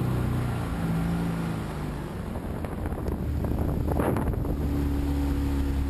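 Motorboat engine running with wind buffeting the microphone. The engine note shifts, rough for a couple of seconds, then settles into a new steady note about four and a half seconds in.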